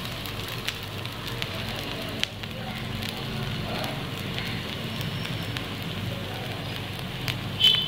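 Oil sizzling and crackling around paniyaram balls frying in a cast-iron kuzhi paniyaram pan, the balls cooking on their second side at medium heat. A short, loud, high-pitched sound cuts in near the end.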